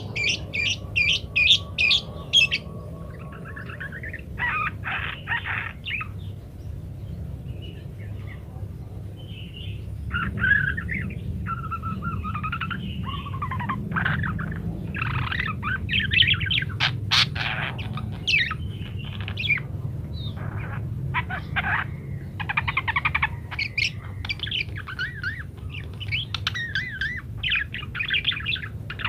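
Budgerigars chattering and warbling in rapid runs of chirps, with a couple of short pauses, over a steady low hum.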